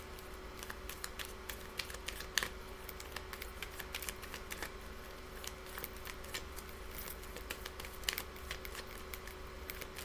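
Deck of tarot or oracle cards being shuffled by hand, a run of soft, irregular clicks and flicks, over a faint steady hum.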